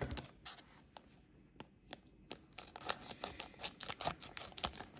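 Trading cards and foil booster-pack wrapper being handled by hand: a run of quick light clicks and scratchy rustles as cards are slid and flicked, sparser about a second in and busier through the second half.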